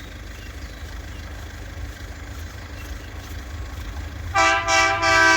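Horn of an Irish Rail 2600 class diesel railcar sounding for the level crossing: a loud blast, broken into short toots, starts about four seconds in, over a low rumble.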